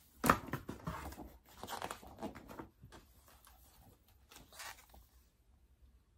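Irregular rustling and crinkling of handled material, a quick run of noises in the first three seconds and a couple more later, then dying away.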